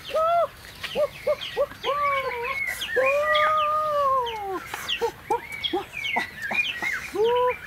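Birds calling over one another: many short, high, falling chirps mixed with lower, drawn-out calls that rise and fall in pitch. The longest of these lasts about a second and a half, near the middle.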